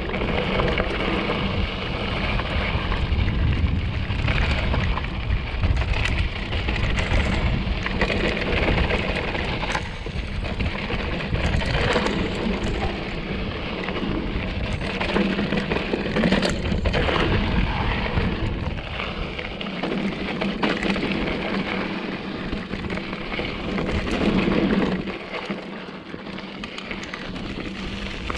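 Mountain bike (2014 Giant Trance 3) riding a dirt trail: steady tyre rumble and rattling, with scattered clicks and knocks, and wind buffeting the GoPro's microphone.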